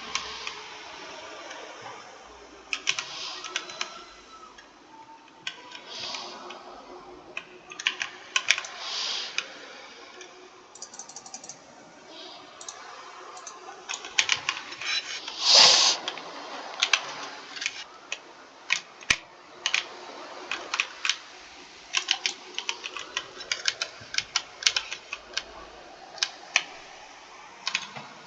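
Computer keyboard being typed on: irregular runs of sharp key clicks, with a louder, longer clack about halfway through.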